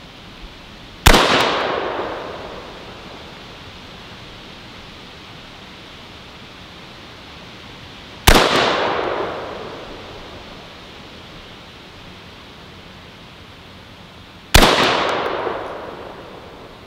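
AR-15 rifle firing three single shots, spaced about six to seven seconds apart. Each crack dies away over a second or so.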